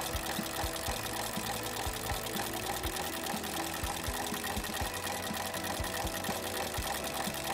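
FOXSEW FX-M350 moccasin ornamental stitching machine running, with a rapid, steady stitching chatter as it sews a shoe's upper to its sole.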